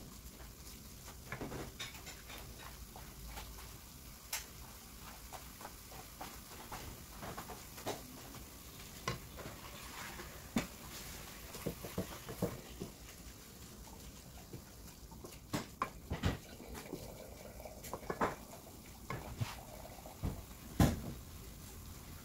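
Wooden spoon stirring and scraping ground beef around a non-stick frying pan, with irregular clicks and knocks of the spoon against the pan, the sharpest one near the end. A low sizzle of the browning meat runs underneath.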